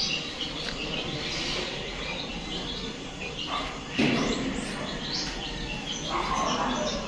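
Small birds chirping repeatedly in the background, with a sudden louder noise about four seconds in.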